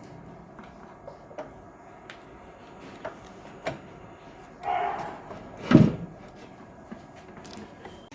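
Scattered small clicks and knocks of cables being plugged into the back of a desktop computer, with a louder scrape about five seconds in and a thump just before six seconds in.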